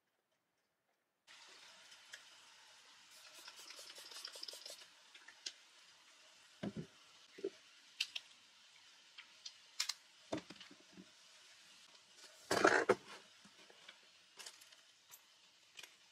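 Hands handling a small plastic tube and a fabric pouch on a tabletop. Starts after a second of silence, then rustling, scattered small clicks and light knocks, and one louder rustle and thump about twelve and a half seconds in.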